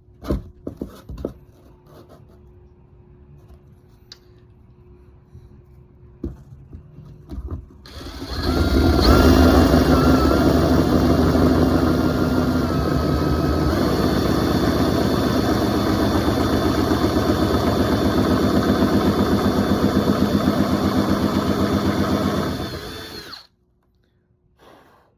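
A few light knocks of handling, then a power drill with a 1-inch hole-cutting bit runs steadily for about fifteen seconds, boring the leash-plug hole into a surfboard's foam tail, and stops abruptly.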